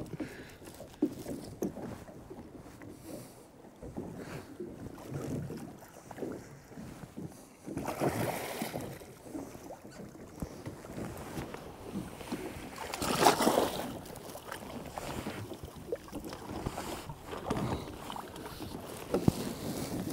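Water splashing and lapping against the side of a small boat, with louder splashes about eight seconds in and again, loudest, about thirteen seconds in.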